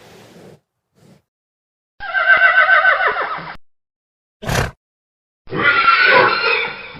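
Horse neighing twice, each a loud whinny with a quavering pitch that falls away. Between the two calls comes a short, sharp burst of noise.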